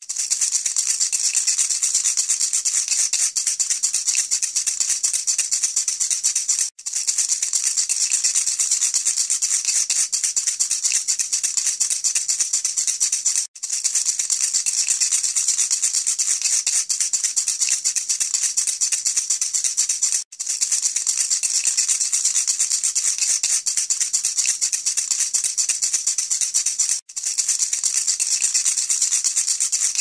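A rattle shaken rapidly and without pause, giving a dense, continuous hiss of beads. The sound is a loop: it breaks off for an instant about every seven seconds, four times, then carries on the same.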